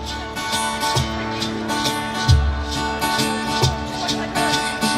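Live country band playing between sung lines: guitar over a steady beat of low drum or bass hits and cymbal ticks.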